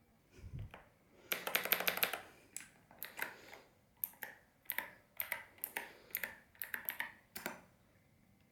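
Mechanical keyboard keys being typed on: a quick run of clacking keystrokes, then short clusters of clacks about every half second, stopping near the end. A low thump comes just before the typing starts.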